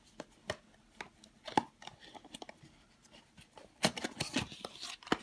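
Blind-box packaging being handled and opened: scattered clicks and taps, with a short burst of crinkling about four seconds in.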